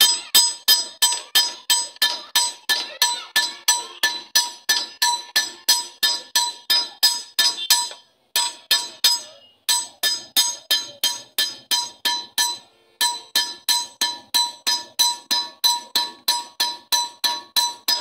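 Blacksmith's hammers striking a red-hot blade on an iron anvil in hand forging, a steady rhythm of about three ringing metal blows a second, broken by short pauses about eight, nine and a half and thirteen seconds in.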